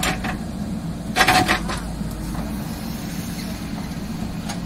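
JCB 3DX backhoe loader's diesel engine running steadily while it works the backhoe arm, with a short burst of clattering about a second in as soil and stones fall from the bucket into a tractor trolley.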